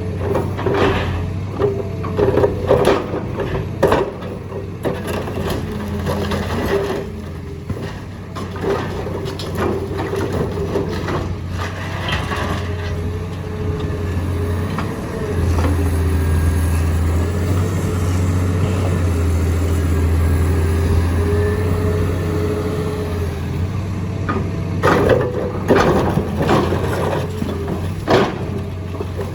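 Excavator's diesel engine and hydraulics running under load with a steady whine, while concrete cracks and crunches in the excavator's jaws in repeated sharp bursts during the first few seconds and again near the end. In the middle stretch the engine works harder and more steadily, with few impacts.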